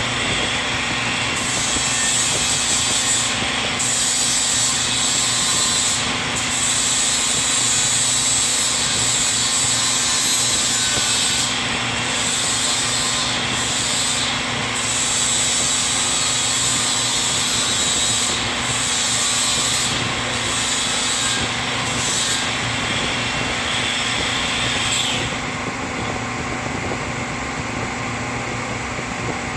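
Milwaukee cordless 4-1/2-inch angle grinder grinding metal: a loud, harsh hiss over the motor's steady hum that wavers as the disc bites and eases. Near the end the disc comes off the work and the grinder keeps running free.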